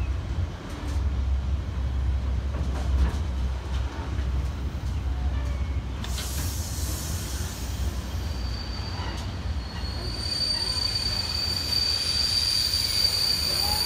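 Container freight train wagons rolling past with a steady low rumble and the odd click from the wheels over the rails. About two-thirds of the way through, a steady high-pitched squeal from the wagons sets in and holds.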